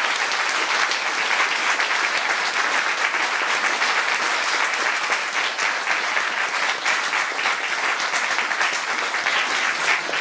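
Seminar audience applauding, a dense steady round of hand clapping for the speaker who has just finished, thinning slightly near the end.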